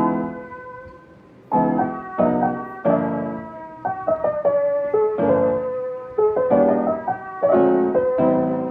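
Background piano music: struck chords and a melody line, each chord fading before the next.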